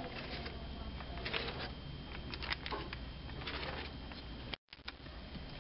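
Light handling sounds of paper and a book being worked by hand: scattered soft rustles and small taps over a steady background hiss, broken by a brief dropout near the end.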